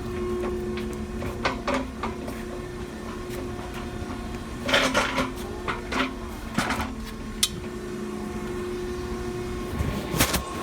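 Cardboard baler running with a steady machine hum, broken by scattered metal clanks and rattles, with a dense cluster about five seconds in and more near the end.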